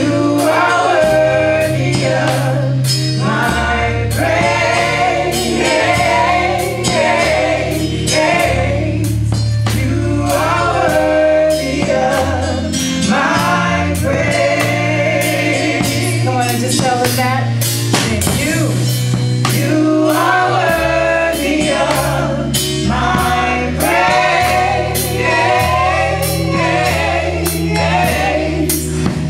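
Live gospel choir and lead singers singing over a drum kit keeping a steady beat with cymbals, and a low bass line.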